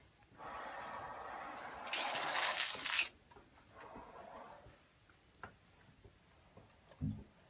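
A rushing hiss for about two and a half seconds, much louder and brighter in its last second, then a fainter hiss near the middle and a single low thump near the end.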